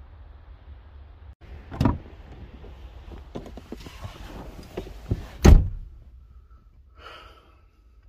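Low wind rumble on the microphone that cuts off, then a knock, rustling and small clicks of someone getting into a minivan, and a car door slammed shut about five and a half seconds in, the loudest sound.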